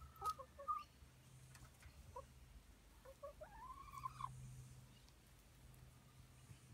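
Hens clucking softly: a few short clucks in the first second, then one longer call that rises and falls, about three to four seconds in.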